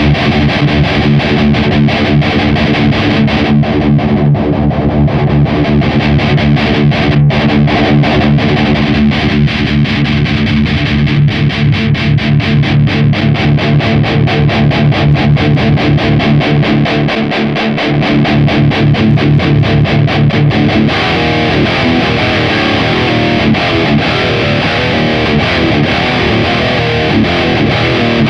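High-gain distorted electric guitar played through a Mooer 005 Brown Sound micro preamp (a model of the EVH 5150 III) on its red channel, with fast, evenly picked riffing. The preamp's settings are tweaked while playing, and about three quarters of the way through the tone changes, with less bass.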